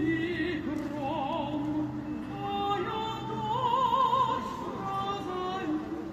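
Opera singing with orchestra, amplified over loudspeakers: a high voice holding notes with wide vibrato over lower sustained lines.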